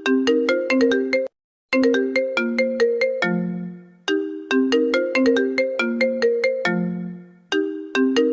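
Phone ringtone playing a short electronic melody of quick, sharply struck notes. Each phrase ends on a lower held note and repeats about every three and a half seconds, with a brief total silence about a second in.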